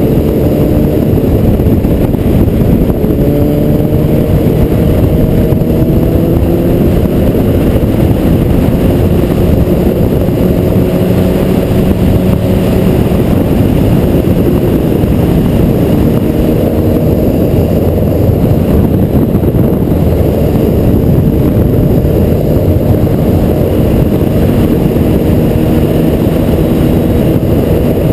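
Honda CBR1000RR sportbike's inline-four engine cruising at a steady, easy pace, its pitch drifting gently up and down. Heavy wind rush on the microphone runs under it throughout.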